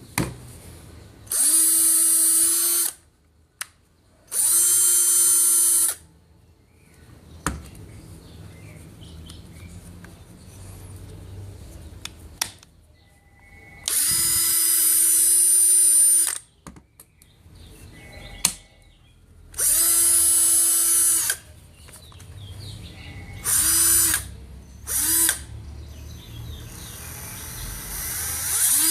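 Bosch GSR 12-2 cordless drill run in short bursts, each about one to two seconds long. The motor spins up to a steady whine and stops, seven times, with a couple of the later runs briefer. Faint clicks and handling noise come between the runs.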